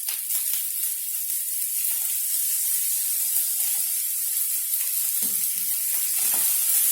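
Fried rice sizzling steadily in hot oil in a pan, with short scrapes of a spatula stirring it, more of them in the last couple of seconds.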